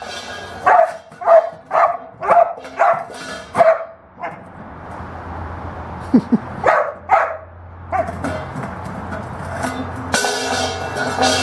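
Young black Labrador barking in a run of short barks, about two a second, over the first few seconds. Near the end, her steel water bowl clanks and rings.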